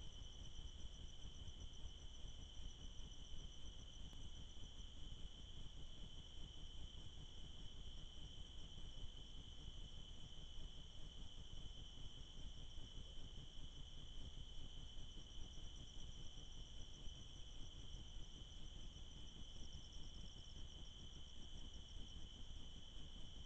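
Faint night-time insect chorus: a steady high trill, with a second, higher trill that pulses, over low background noise.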